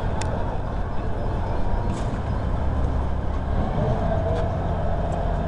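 Low, steady rumble of railway machinery, with a steady hum setting in about three and a half seconds in and a few light clicks.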